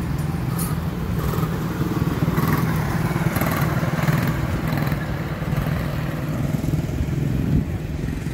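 Quarter midget race cars' small engines running together as a pack around a dirt oval, a steady buzzing drone that swells slightly as the cars come through the turn.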